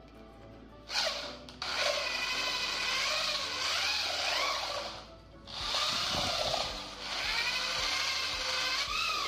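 Corded electric drill with a long stirrer rod mixing distemper paint and stainer in a bucket. The motor whine starts about a second in and rises and falls in pitch. It stops briefly about five seconds in, then runs again.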